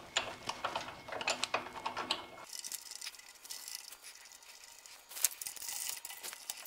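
Light metallic clinks and clicks as the left-hand differential bearing cap of a 1971 Cadillac Coupe DeVille rear axle is set in place and its bolts threaded in by hand. The clicks come thick for the first couple of seconds, then turn sparse and faint.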